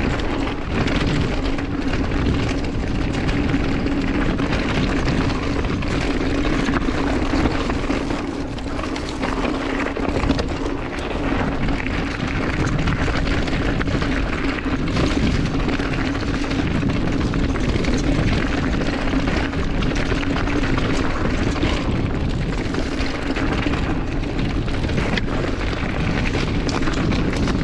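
Mountain bike riding fast down dirt singletrack: knobby tyres rolling and chattering over the trail and the bike rattling with many small knocks, under steady wind rumble on the camera microphone and a steady hum.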